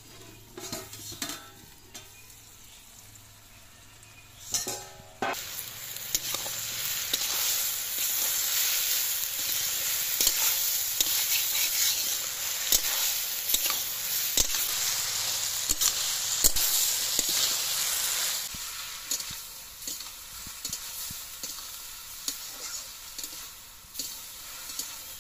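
Malabar spinach stems and vegetables sizzling in a hot iron kadai while a flat spatula stirs and scrapes them, with many small scraping clicks over the hiss. The first few seconds are quieter with a few knocks; a metal clank about five seconds in, then the sizzle comes in loud and eases somewhat after eighteen seconds or so.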